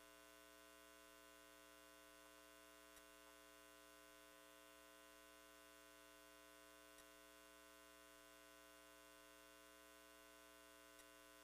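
Near silence with a faint, steady electrical hum made of many steady tones, and three faint ticks about four seconds apart.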